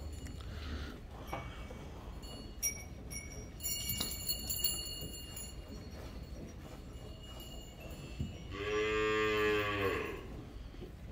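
A Gir cow mooing once, a single long low moo of about a second and a half, near the end.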